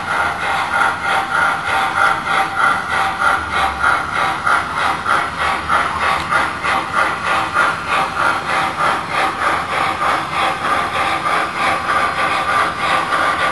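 Digital steam sound from the Proto-Sound 3.0 speaker in an MTH HO-scale Erie 2-8-8-8-2 Triplex model locomotive: a steady, even chuffing rhythm as the engine runs under way.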